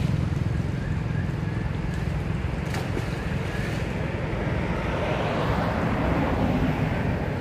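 Steady rumble of wind buffeting the microphone, with a hiss above it that swells a little over five seconds in.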